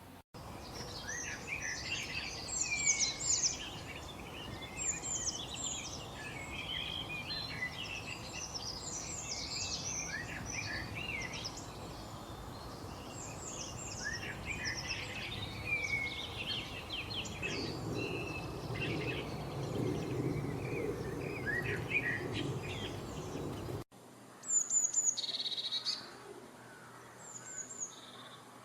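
A dense chorus of many small birds chirping and singing over one another, with quick sweeping calls. About 24 seconds in, the sound cuts abruptly to a quieter scene with a few high, thin chirps.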